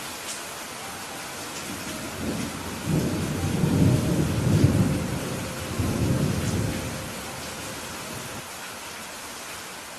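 Steady rain hiss, with a roll of thunder rumbling in about three seconds in and dying away a few seconds later.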